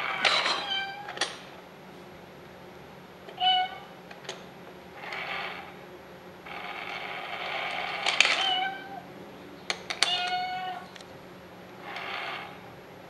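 Mechanical cat coin bank being set off again and again: short runs of its small motor whirring, alternating with several short, level-pitched meows.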